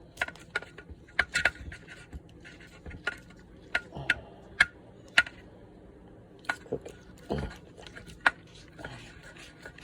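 Irregular small clicks and taps of a Neutrik XLR cable connector's parts being handled and fitted together.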